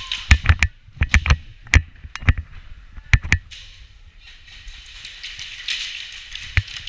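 Airsoft gunfire in an indoor plywood arena: a quick string of sharp pops and cracks in the first three and a half seconds, then a lull with a single crack near the end.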